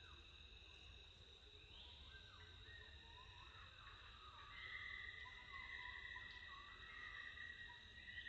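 Faint insect chorus: several steady, high, shrill drones sound together, with short rising notes now and then. One drone comes in louder about halfway through.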